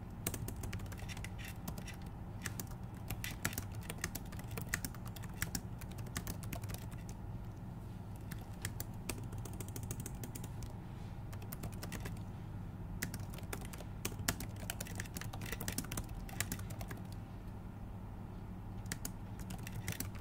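Typing on a computer keyboard: a run of irregular key clicks with short pauses, over a steady low hum.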